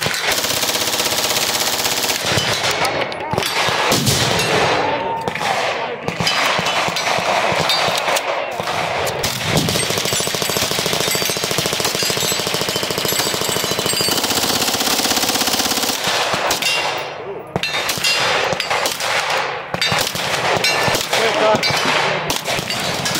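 Fully automatic submachine gun fire in bursts, from a B&T APC9 and then an H&K MP5K, over near-continuous gunfire from other guns along the firing line.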